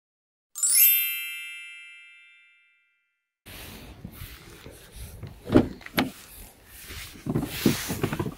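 An intro chime sound effect that sweeps up and rings out, fading over about two seconds, then silence. After that come close handling noise, footsteps and a couple of sharp knocks as someone opens a car door and climbs in, with rustling near the end.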